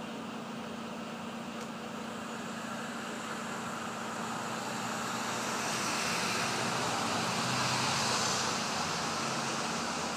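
A car passing by: its road and tyre noise swells over several seconds, is loudest about eight seconds in, then fades away. Under it runs a steady low hum.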